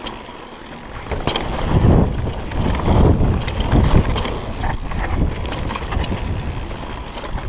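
Wind rushing over the camera microphone on a Specialized Demo downhill mountain bike descending a dusty dirt trail, with its tyres running over loose dirt and a few knocks as the bike hits bumps. The noise is quieter for the first second, then swells in surges.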